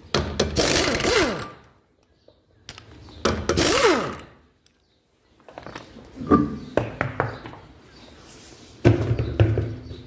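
Impact wrench spinning the lug nuts off a car's steel wheel: four short runs about three seconds apart, one per nut, with the pitch falling as some of the runs end.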